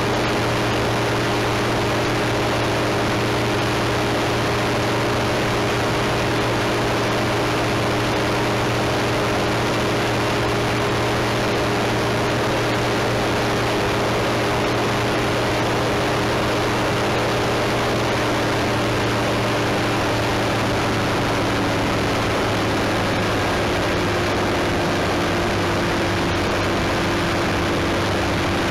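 A small propeller aircraft's engine running steadily under a constant rush of air, heard on board in flight. A little past two thirds of the way through, one of its tones rises slightly.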